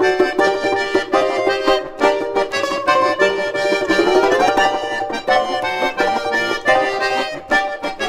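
Instrumental outro music playing quick repeated chords, with a rising run of notes about four seconds in.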